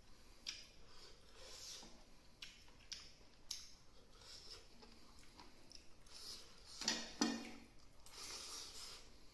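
A person chewing food close to the microphone, a run of soft wet clicks and smacks, with two louder ones close together about seven seconds in.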